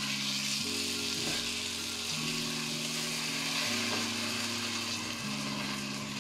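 Rice sizzling in a pot, fried grains simmering in blended onion, garlic and chicken bouillon and stirred with a plastic spatula. Background music plays underneath with chords changing about every one and a half seconds.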